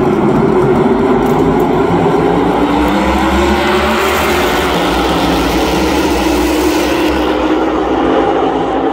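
Many NASCAR stock cars' V8 engines accelerating together on a restart. The pitch climbs slightly. The sound grows brighter in the middle as the pack passes, then eases off after about seven seconds as the cars pull away.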